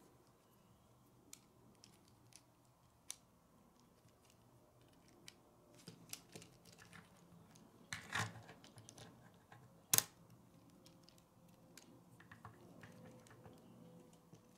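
Faint, scattered light clicks and taps of K'nex plastic pieces being handled and snapped together, with a short rustle about eight seconds in and one sharper, louder click about ten seconds in.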